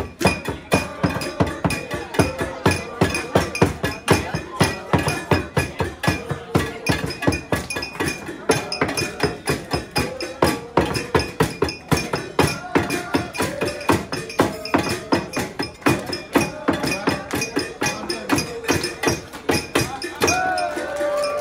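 A group of waiters singing a birthday song while diners clap along in time: steady rhythmic hand claps, about two to three a second, under the singing voices.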